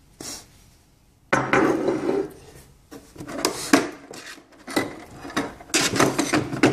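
Metal parts of a printer mounting bracket (stainless-steel rods and clamp fittings) clinking, clattering and rubbing against each other and the packaging as they are handled. It starts about a second in after a near-quiet moment and goes on irregularly.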